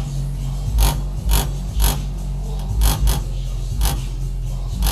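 Bass-heavy music played loud through home-built transmission-line speakers with Visaton W170S woofers: a deep steady bass line with hard bass pulses. Sharp rattling clicks land on the pulses, about every half second at first, from something in the house shaken by the bass.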